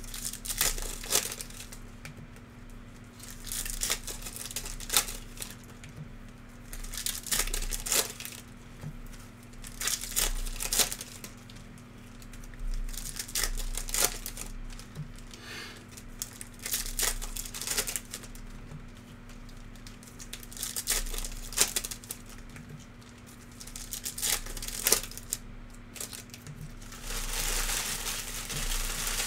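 Trading-card pack wrappers being torn open and crinkled by hand, in short bursts every second or two, with a longer stretch of crinkling near the end. A steady low electrical hum runs underneath.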